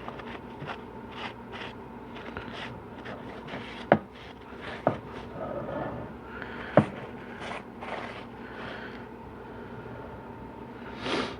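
Short scraping and rubbing strokes as the face of a 4L80E transmission pump half is wiped clean, with a few sharp knocks of metal parts on the bench around the middle and a louder rub near the end.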